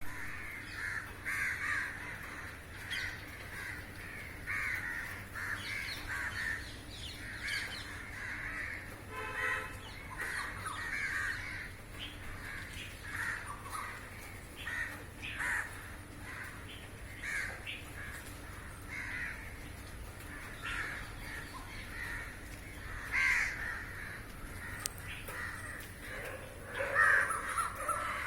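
A flock of crows cawing, many overlapping harsh caws one after another, loudest near the end.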